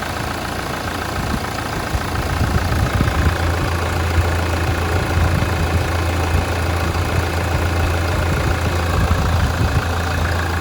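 Hyundai Terracan engine idling steadily with a low, even hum that gets louder about two seconds in. The owner judges the engine sound perfect, nothing to worry about.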